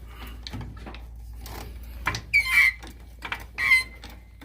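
Car jack being pumped to lift the car: faint clicks, then two high squeaks, about two seconds in and again near the end.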